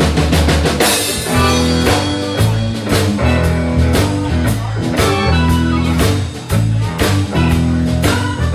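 Live band playing: electric guitar, electric bass, drum kit and keyboard, with a steady drum beat under the bass line.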